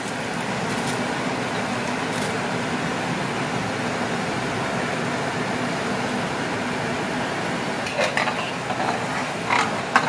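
Steady hiss in the kitchen. Near the end a metal ladle knocks and clinks a few times against a large aluminium pot as rice is stirred into the water.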